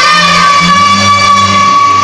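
Clarinet holding one long high note in a slow worship tune, with a lower accompaniment line moving underneath; the held note gives way to a new one near the end.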